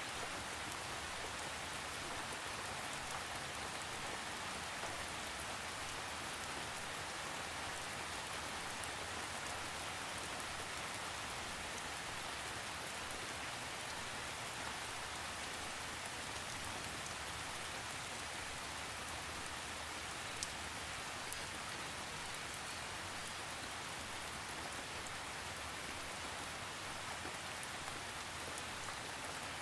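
Steady rain falling, a constant even hiss with scattered faint drop ticks and no thunder.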